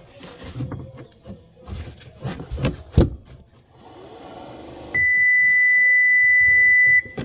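Clicks and knocks from handling the loose power liftgate motor and gear assembly, with one sharp knock about three seconds in and a short buzzing noise after it. Then a loud, steady high-pitched beep lasts about two seconds and cuts off abruptly.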